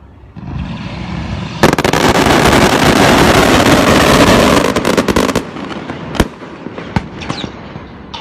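Daytime coloured-smoke fireworks firing in a barrage. A rising rush builds, and about a second and a half in it breaks into a dense, loud salvo of crackling reports that lasts about four seconds and cuts off. A few single sharp bangs follow.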